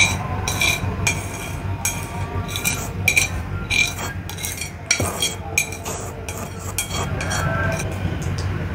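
Chopsticks clinking and scraping against a bowl as saucy instant fried noodles are pushed out of it, with sharp clinks about twice a second that thin out in the second half.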